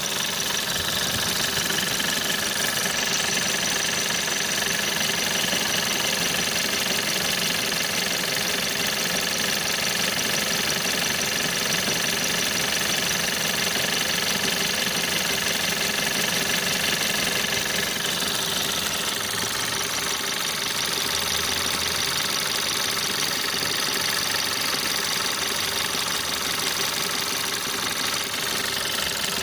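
1.4 TSI CAXA turbocharged four-cylinder petrol engine running steadily, with an extraneous knocking noise that the owner likens to an Indian beating a drum.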